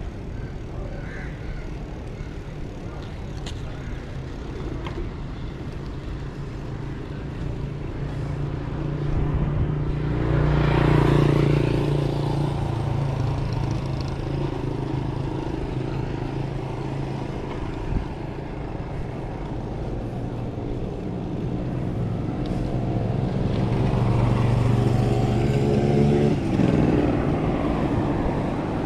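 Motor vehicle engines on a road over a steady road noise, with one engine growing loud about ten seconds in and another building slowly later, its pitch dropping suddenly near the end.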